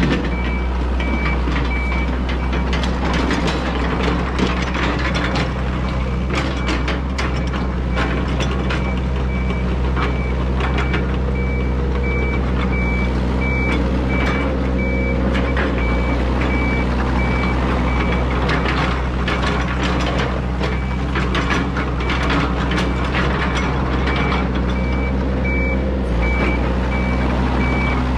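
Yanmar ViO80 excavator's diesel engine running steadily under load while its travel alarm beeps about once a second as the machine tracks, the beeping pausing for a few seconds past the middle. Scattered clanks and knocks from the tracks and bucket on gravel.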